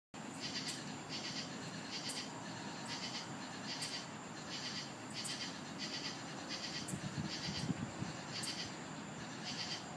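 Crickets chirping in a steady rhythm, about three chirps every two seconds, over a constant night-time hiss. A brief low rumble rises near the end.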